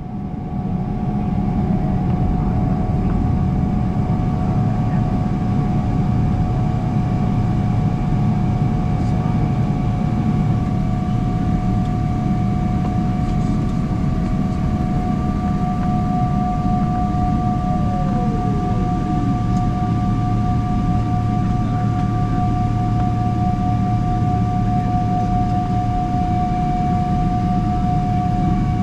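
Boeing 777-300ER cabin noise during pushback, heard from a window seat: a steady low rumble with a steady high whine, and one fainter tone that falls in pitch a little past the middle.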